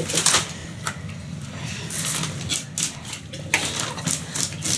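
Knife scraping the scales off a whole fish on a board: quick, evenly spaced scraping strokes, a few at first, then a steady run of several a second over the second half.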